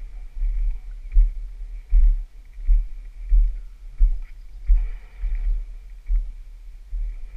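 Rhythmic low thumps, about one and a half a second, picked up by a helmet-mounted camera as the rider moves on foot down a rocky trail to the fallen dirt bike.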